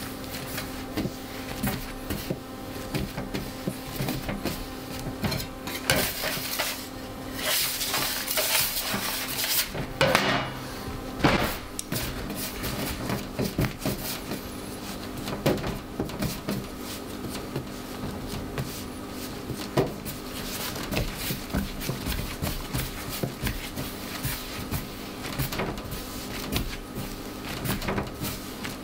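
Hands shaping sourdough dough on a stainless steel bench: irregular taps, slaps and scrapes of dough and hands against the steel, busiest about a third of the way through, over a faint steady hum.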